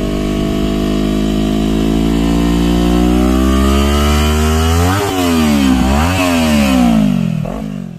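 Kawasaki Z400 parallel-twin engine revved through a Villain CB1 carbon aftermarket exhaust. The revs are held and climb slowly, then two quick throttle blips come about five and six seconds in, and the note falls away near the end.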